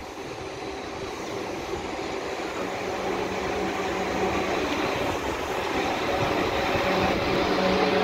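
South Western Railway electric multiple unit pulling into the platform: motor hum and wheel-on-rail noise grow steadily louder as it approaches, with a steady low electric tone.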